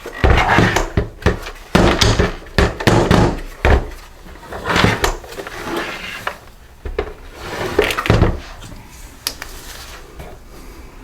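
Irregular clicks, knocks and scraping from a screwdriver and hands working on a plastic blower housing while its screws are taken out. The knocks come thickest in the first half and more scattered after.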